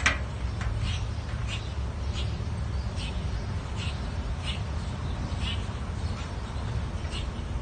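Outdoor garden ambience: a steady low rumble with short, scattered bird chirps about every half second to a second.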